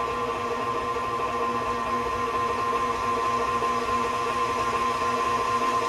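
KitchenAid stand mixer running steadily, its motor giving a constant, even whine.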